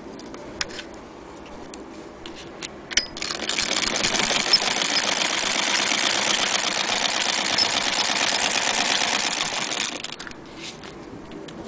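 Antique hand-crank Singer Model 12K sewing machine running steadily for about six and a half seconds as it stitches denim. A few sharp clicks come before it starts.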